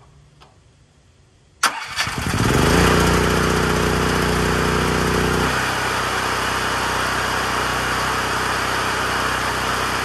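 A Firman 439cc OHV single-cylinder generator engine is electric-started about one and a half seconds in. It catches at once and speeds up over about a second to a steady run. About halfway through its tone changes as it settles, and it then runs evenly at governed speed.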